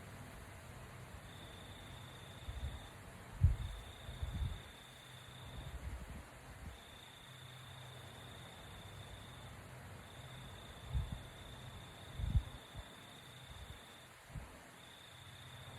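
An insect trilling at one steady high pitch in stretches of one to three seconds with short gaps, over a low hum. A few short, low thumps stand out, the loudest about three and a half seconds in.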